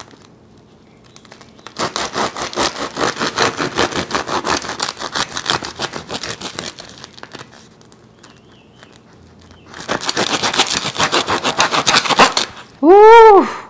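Chef's knife sawing through the crisp crust of a freshly baked French baguette, the crust crackling and crunching with each stroke, in two long bouts with a pause between them. Near the end a short rising-then-falling vocal sound from a woman.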